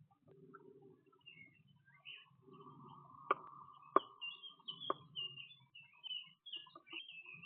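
Small songbirds, tits, making short high chirps at a nut feeder, with three sharp taps about a second apart in the middle.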